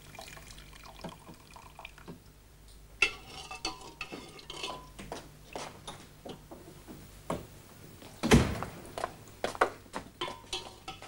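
Dishes and a pot clinking and knocking while soup is poured out, with a heavier knock about eight seconds in.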